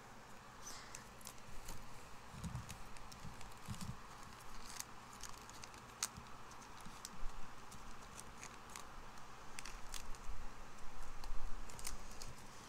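Pokémon trading cards being handled and flipped through, with scattered light clicks and rustling. Near the end, a foil booster pack crinkles in the hands.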